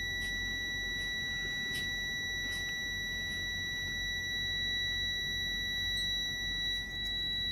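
Truck dashboard warning buzzer sounding one steady, unbroken high tone with the ignition key turned to on and the diesel engine not running.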